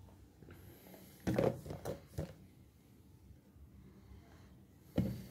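Mostly quiet handling sounds of a plastic jar of crystallised honey being moved about, with a few soft knocks and rubs: one about a second in, two more around two seconds, and one near the end.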